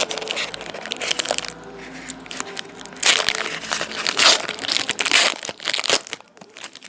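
Foil trading-card pack wrapper crinkling and crackling as it is torn open and handled, loudest from about three seconds in.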